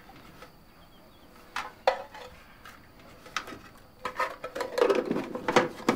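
Breakfast-table clatter: crockery and cutlery clinking and a metal food tin being handled. A few separate clinks, one sharper about two seconds in, then a busier run of clattering from about four seconds in.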